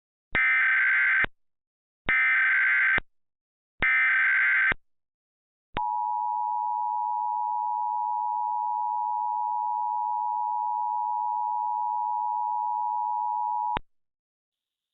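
Emergency Alert System tones. First come three SAME header data bursts, each about a second long, a buzzy warbling digital chirp. After a short pause comes the EAS two-tone attention signal (853 and 960 Hz together), held steady for about eight seconds before it cuts off. Together they announce the start of an emergency alert.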